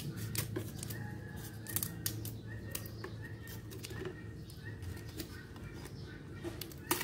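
Scissors snipping a dry, brittle Indian almond leaf into pieces: a string of irregular sharp snips and crackles.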